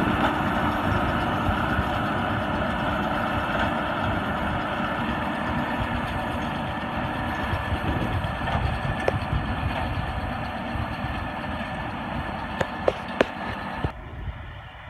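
White 6710 tractor running steadily while pulling a Massey 1745 round baler through hay, the machine noise slowly growing fainter, with a few sharp clicks near the end.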